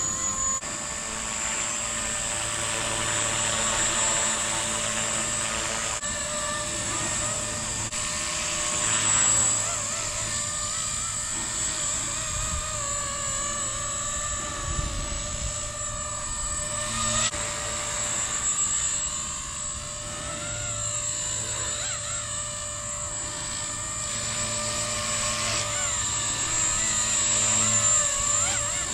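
Blade Revolution CP 235 collective-pitch RC helicopter in flight: a steady high whine and rotor buzz that wobble in pitch and swell and ease in loudness as it manoeuvres.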